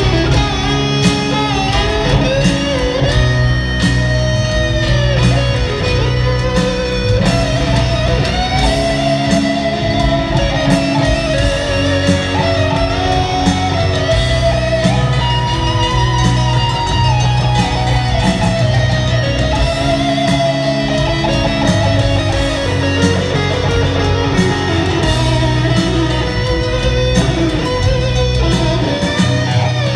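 Live electric guitar solo: a sustained, bending lead line over the band's bass and drums, in a large arena.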